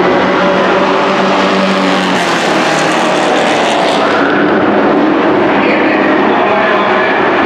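A pack of dirt-track racing pickup trucks running hard around the oval, several engines heard together at high revs, loud and steady.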